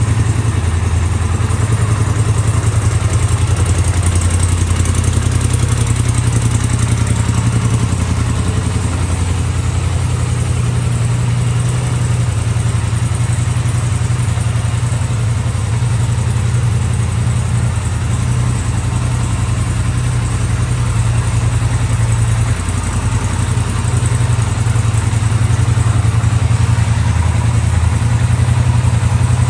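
2020 Polaris Sportsman XP 1000's twin-cylinder engine idling steadily, with a brief dip in level about 22 seconds in.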